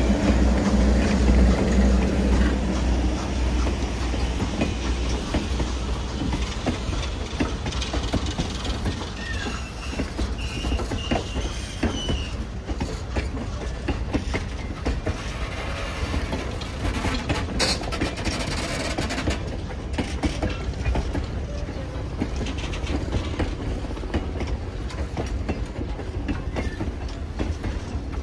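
Train cars rolling past steadily, their wheels clacking over the rail joints, loudest over the first couple of seconds. A faint wheel squeal comes about ten seconds in.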